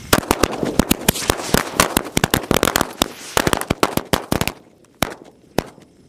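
A string of small red firecrackers going off in a rapid, uneven run of sharp bangs for about four and a half seconds, then two last single pops.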